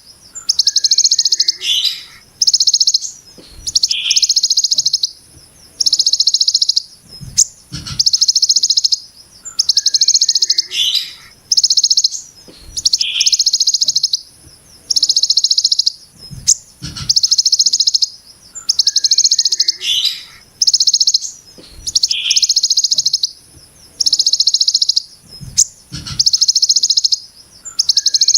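Ciblek gunung giving its 'brem' call: a rasping, buzzy high-pitched burst about a second long, repeated about every one and a half to two seconds, with short lower chirps between the bursts.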